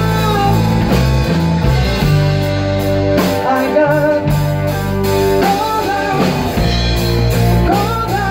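Blues-rock band playing an instrumental passage: a lead guitar line with bent notes over bass and drums.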